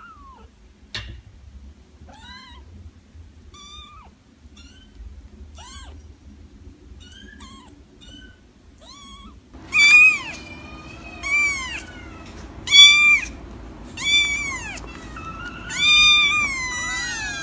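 Very young kittens mewing. At first, soft, faint mews about once a second; a little over halfway through, louder, higher-pitched mews take over, still about one a second.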